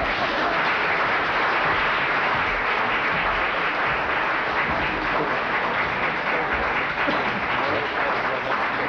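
A large seated audience applauding, a dense, steady clapping that eases slightly near the end.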